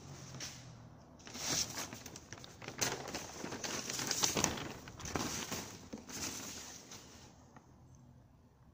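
A large sheet of paper instructions rustling and crinkling as it is unfolded and handled, in a run of irregular rustles that die away near the end.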